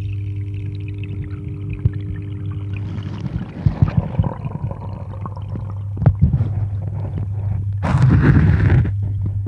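Underwater sound of a garden pond: the steady low hum of the pond pump that feeds the waterfall, heard through the water. From about three seconds in there are scattered crackles and knocks, and a loud rushing burst about eight seconds in.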